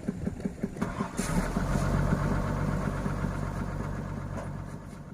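Excavator engine idling with an even pulsing beat, then rising in speed about a second in and running on more steadily and louder before fading out near the end.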